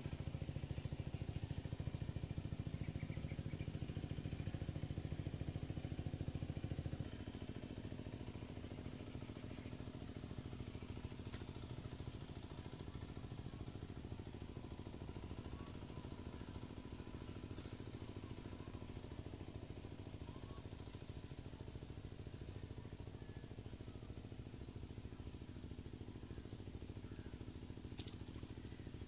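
A steady, engine-like drone, louder for the first seven seconds and then dropping to a lower level.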